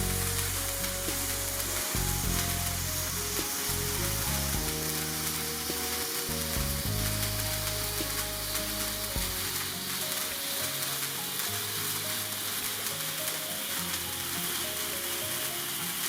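Sparkler birthday cake candle burning with a steady hissing crackle, over background music with held bass notes.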